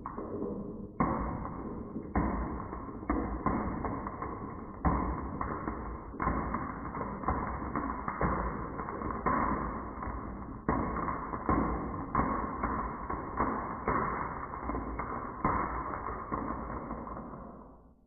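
Marbles rolling down a wooden HABA marble run, with a steady rolling rumble and sharp clacks about once a second as they drop and strike the track. The sound fades away near the end.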